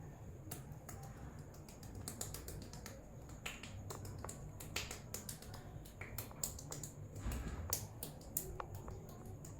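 Rapid, irregular sharp snaps and cracks from a barber's hands working the head and scalp in an Indian head massage, the skin and hair cracking technique.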